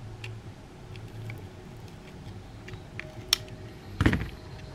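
Light clicks and scrapes of a utility knife blade working at a phone's plastic frame, with a sharp click a little past three seconds, then a dull knock about four seconds in as the knife is put down on the cardboard-covered table.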